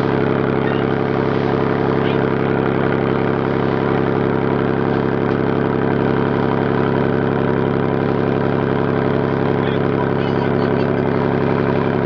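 Boat engine running steadily at a constant speed, heard from on board.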